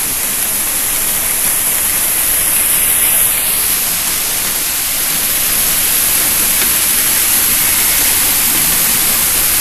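Polythene gusseting machine running, its printed plastic film web running over the steel rollers: a steady, loud rushing noise with a high hiss on top.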